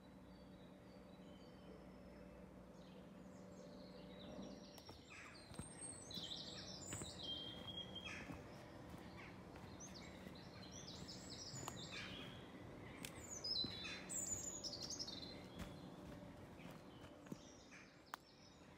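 Woodland birds singing and chirping, several short calls and trills that are busiest in the middle, over a faint steady low hum.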